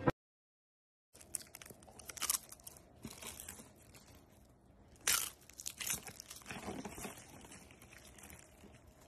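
Irregular, close-up rustling and crunching noises, with sharp crackles scattered through them and the loudest about five seconds in. They start about a second in.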